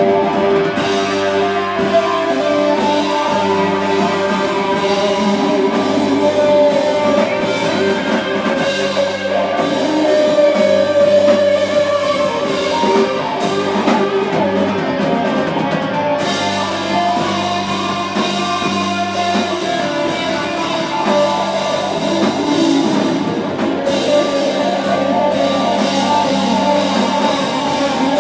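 Live rock band playing: electric guitars and bass holding sustained notes over a drum kit.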